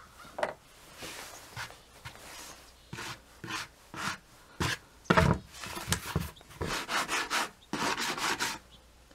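Sanding sponge scrubbed back and forth over a dried scenery-compound grade crossing on HO track: gritty rubbing strokes in irregular runs, with a sharp knock about five seconds in.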